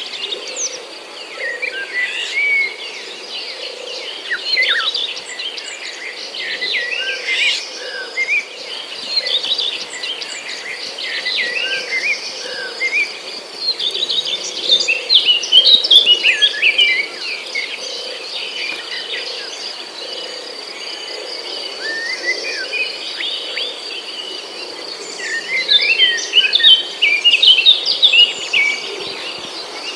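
Many birds chirping over a steady high insect drone, the chirping busiest about halfway through and again near the end.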